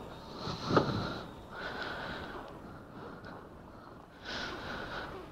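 A rider's breathing, picked up close by a microphone inside the helmet setup: a few slow breaths over a faint steady hiss.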